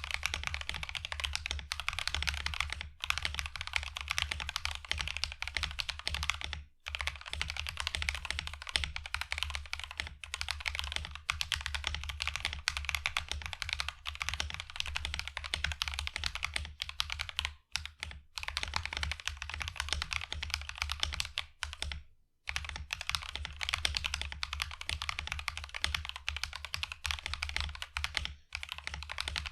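Typing test on a mechanical keyboard with Akko CS Snow Blue Gray linear switches: fast, continuous keystrokes with a clacky, poppy sound and some scratchiness from the unlubed switches, broken by a few brief pauses.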